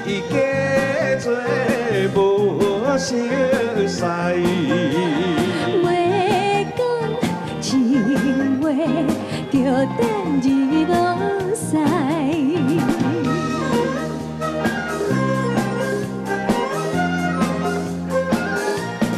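A man and a woman singing a Taiwanese Hokkien pop duet, accompanied by a Chinese orchestra with pipas. The sung line drops out about two-thirds of the way through, leaving the orchestra playing alone.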